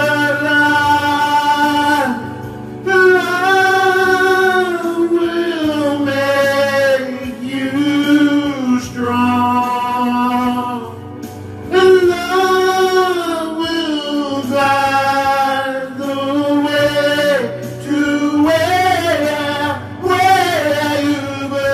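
A man singing an improvised song in long held notes that slide up and down in pitch, over a steady low drone.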